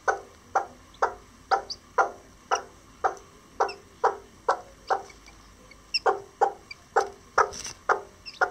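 Self blue Old English Game bantam hen clucking to her newly hatched chicks: short, even clucks about two a second, with a brief pause about halfway through.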